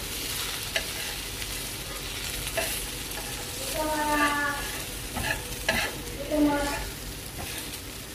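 Egg omelette sizzling in oil in a non-stick frying pan as a slotted metal spatula scrapes and pushes at it, with sharp clicks of the spatula against the pan. Two short squeaks come about four and six seconds in.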